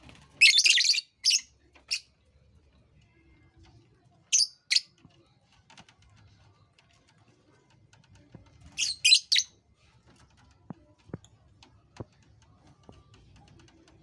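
Pet lovebirds giving shrill, high-pitched chirps in three short bursts: a cluster near the start, two quick chirps around the middle, and a louder cluster about two-thirds through. A few faint clicks follow near the end.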